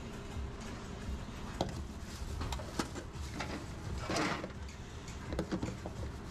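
Clicks and knocks of metal serving spoons and clear plastic lids on stainless steel steam-table pans, with a short scraping rustle about four seconds in, over a steady low kitchen hum.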